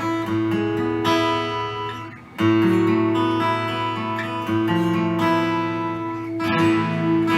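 Martin rosewood dreadnought acoustic guitar played in strummed chords and picked notes, the chords left ringing. The sound fades briefly about two seconds in, then a loud new chord comes in.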